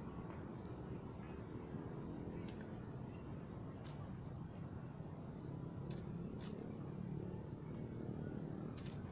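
Insects chirring in a steady, high, unbroken drone over a low, even background rumble, with a few sharp clicks scattered through.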